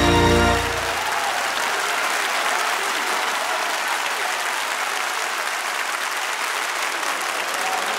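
The held final chord of the orchestra and choir stops under a second in, and an audience applauds steadily.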